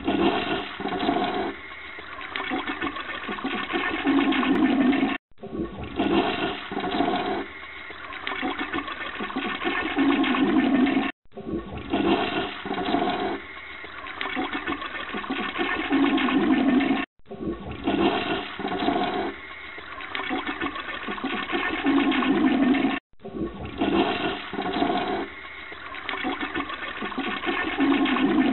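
Toilet flushing, with water rushing through the bowl. The same flush of about six seconds plays five times in a row with short breaks between, each one starting loud and swelling again just before it stops.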